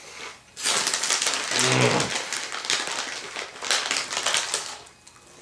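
Cheetos Crunchy being eaten: a snack bag crinkles and the crunchy cheese snacks crackle as they are chewed, with many fine clicks over about four seconds. A short hummed "mm" from the eater comes about one and a half seconds in.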